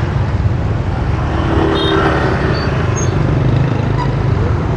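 Steady low rumble of motor-vehicle traffic, with faint scattered higher tones over it.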